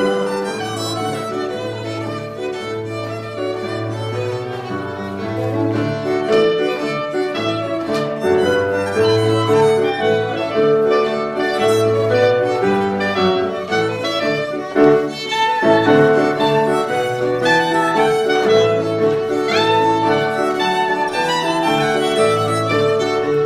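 Fiddle-led tune for English country dancing, played over a steady, regular bass beat.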